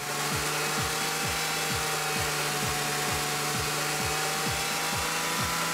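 BMW E39 528i's 2.8-litre straight-six held steadily at about 3000 rpm, a level hum. Background music with a kick-drum beat about twice a second plays over it.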